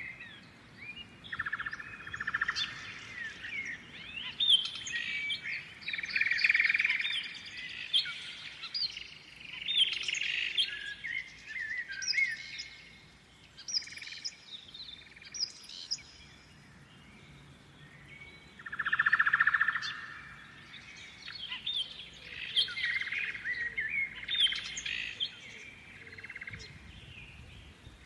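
Songbirds singing and chirping, many quick high calls overlapping in bursts of chatter that come and go, the loudest about a quarter of the way in and again about two-thirds through.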